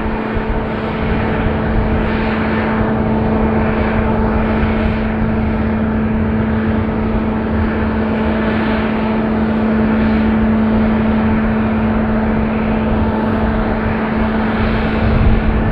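Boeing 737-800's CFM56 jet engines on final approach, a steady drone with a constant low hum running through it.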